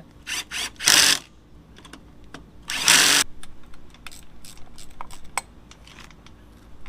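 Two short bursts of a power tool running down fasteners, about two seconds apart. Scattered light clicks and clinks of tools and parts sound around them.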